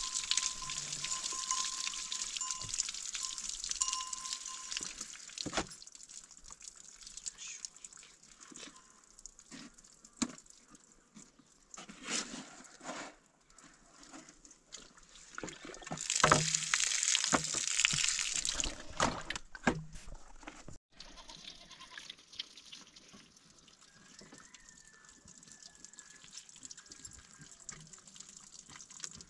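Water from a hose splashing onto an animal-skin bag as it is rinsed, in two spells: over the first few seconds and again about sixteen seconds in, with clicks and handling noises between. A goat bleats faintly near the end.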